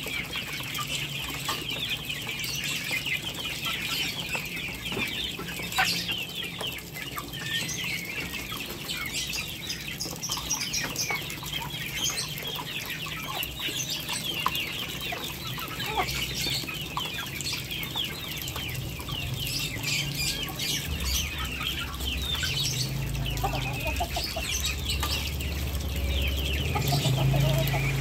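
Poultry feeding on shredded cabbage: chickens cluck and give many short high chirps, while sharp clicks of bills pecking come through. A low hum joins about two-thirds of the way through.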